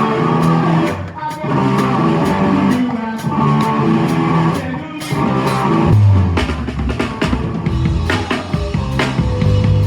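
Live rock band playing: electric guitar chords over steady hi-hat ticks, then the full drum kit and bass come in heavily about halfway through.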